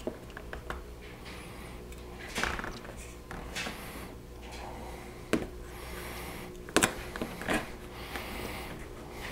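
Aluminium foil tape being pressed and rubbed down by fingers onto a plastic bumper cover: soft crinkling and rubbing, with a few sharp clicks in the second half.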